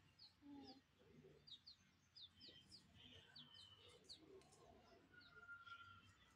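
Faint birdsong: short, high, down-slurred chirps repeated about ten times, with one longer held whistle about five seconds in.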